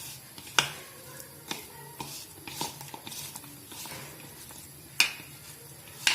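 Bitter gourd slices being mixed with spice powder and cornflour in a bowl: scattered sharp clicks and taps against the bowl, the loudest about half a second in and again about five seconds in.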